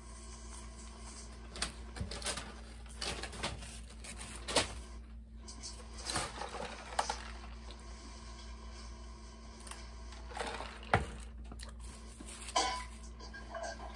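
Irregular light clicks and taps, a few louder knocks among them, over a steady low hum.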